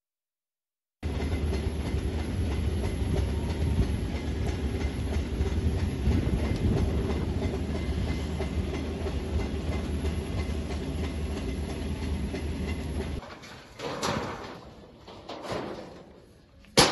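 A large sawmill fire burning: a steady rumble with dense crackling, which cuts off abruptly about twelve seconds in. After that come fainter scattered crackles and a single sharp click near the end.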